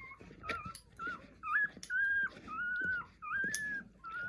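A week-old puppy whining and squealing in a string of short, high cries, about half a dozen, some of them bending in pitch, while being held for a nail trim.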